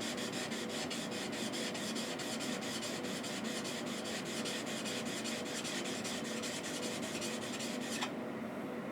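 Flat back of a steel chisel rubbed back and forth on a wet diamond sharpening stone with lapping fluid: a steady, even scraping that stops shortly before the end.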